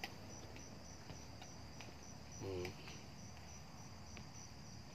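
Crickets chirping steadily in a fast, even pulse of about three a second. A few faint clicks and a brief voice-like hum come about halfway through.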